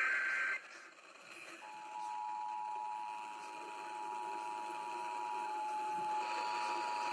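Emergency Alert System signal: the last short warbling SAME data burst ends half a second in, and after about a second's pause the EAS two-tone attention signal begins, a steady dual-pitch alert tone that holds to the end.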